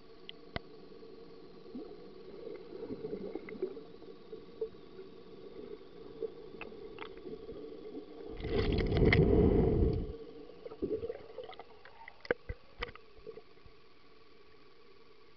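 Muffled sound from under the water of a swimming pool: a steady faint hum with scattered clicks and knocks. About eight seconds in, a loud rush of water noise lasts roughly two seconds.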